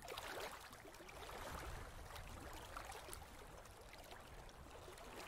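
Faint, steady trickle of aquarium water, with scattered small ticks.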